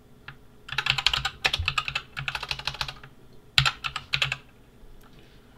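Typing on a computer keyboard in quick runs of keystrokes, broken by short pauses: one long run in the first half and a shorter one a little past the middle.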